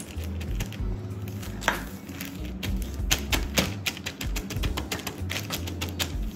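Lo-fi background music, with the irregular crackle and crinkle of a plastic bag being smoothed and pressed flat by hand over dye-soaked fabric.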